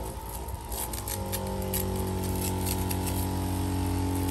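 Electric pump of a VANTOOL carpet pre-sprayer running with a steady hum while water sprays from the wand, with scattered faint clicks. About a second in, the hum changes and settles into a steadier, lower tone as the pump primes the line to full pressure.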